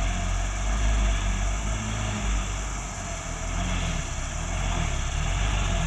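Diesel engine of a loaded coal truck running with a steady low rumble under a broad hiss.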